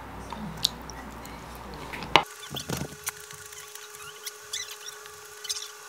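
Light clicks and taps of wooden chopsticks and a plate being handled, with one sharp click about two seconds in.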